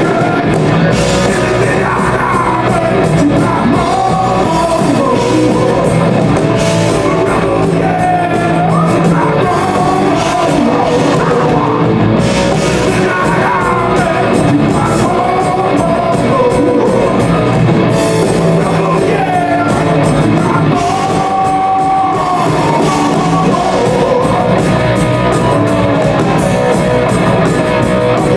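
Rock music with a singing voice, loud and steady over a driving beat.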